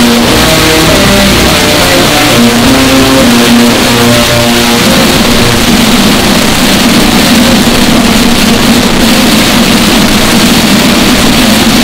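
Bagpipes playing, blown out with extreme overdriven, clipped 'deep fried' distortion at near full-scale loudness. For the first few seconds the tune steps between notes, then about five seconds in it settles into one rough, held tone.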